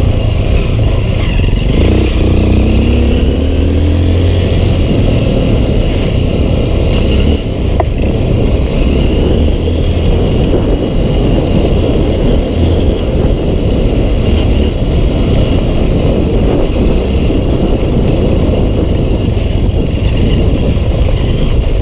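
Honda CRF150L's 150cc single-cylinder engine running as the dirt bike rides along a rough trail, under a constant loud rumble, with the revs rising briefly about two to four seconds in.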